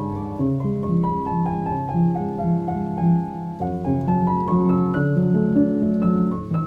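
Classical-style piano music with rising runs of quick notes over a steady lower accompaniment.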